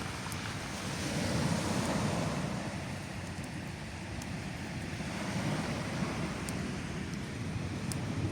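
Sea surf washing onto the shore, swelling and easing off twice, with a low rumble of wind.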